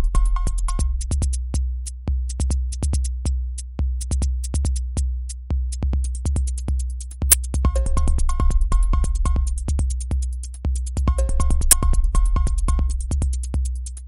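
Electronic ringtone music: a drum machine beat at about four hits a second over heavy bass, with runs of short high synth beeps that drop out for several seconds and come back twice.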